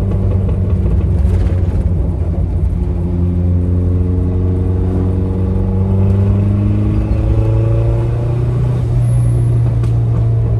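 Turbocharged Mazda Miata engine running while driving, with steady road rumble; its note climbs slowly over several seconds as the car gathers speed.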